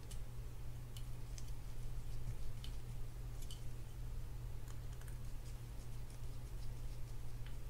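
Scattered faint clicks and ticks of a small screwdriver and metal parts as a screw is driven into a Penn Spinfisher 704Z spinning reel's rotor, over a steady low hum.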